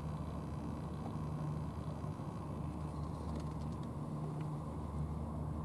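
Steady low engine rumble with a constant hum, with a few faint ticks about three to four seconds in.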